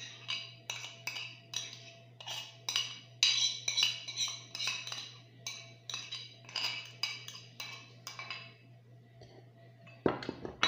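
Spoon knocking against an upturned mixing bowl to shake out the last of the spice rub: a steady run of sharp clinks, about two to three a second, that stops about eight seconds in, followed by one louder knock near the end.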